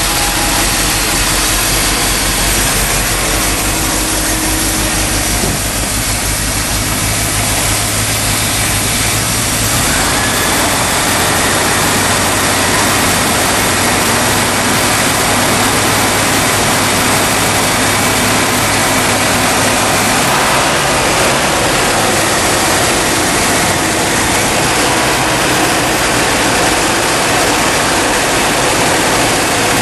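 Dodge Power Wagon 360 V8 engine running on the last gasoline left in the carburetor after its fuel supply has been shut off, on the way to running out. Its sound changes about ten seconds in, over a steady rushing noise.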